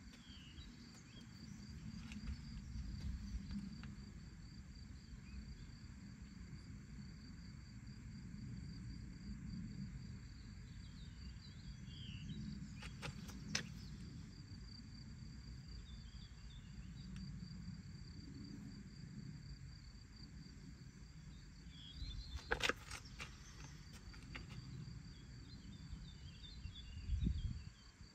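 Open-field ambience: an insect trilling steadily in a fast pulsing buzz, over a low wind rumble, with a few faint bird chirps. Two sharp clicks, one about halfway through and one later on.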